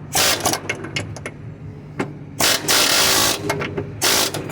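Pneumatic air hammer with a hammer bit firing in three bursts against a bushing it is trying to drive out: a short burst at the start, a longer one of about a second midway, and another short one near the end.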